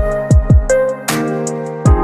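Background music: electronic track with a heavy falling-pitch kick drum beat over sustained synth chords.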